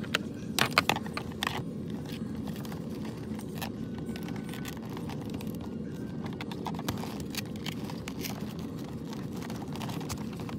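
Hands handling a football helmet's padding and plastic shell: a few sharp clicks and scrapes about half a second to a second and a half in, then scattered faint rustles and ticks, over a steady low hum.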